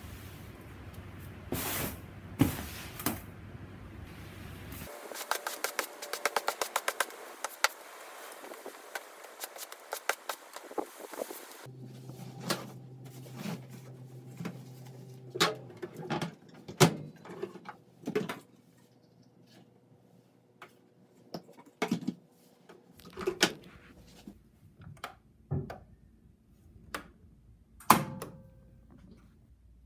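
A stiff push broom scrubbing back and forth across a fleece cage liner on concrete. Then, over a steady low hum, scattered knocks and clicks as a front-loading washing machine is loaded and its door handled. Near the end comes a loud click and a short beep as the start button is pressed.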